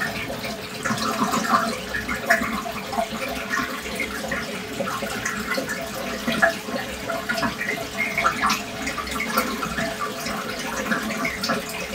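Aquarium water trickling and splashing steadily with small irregular drips and plops, over a steady hum.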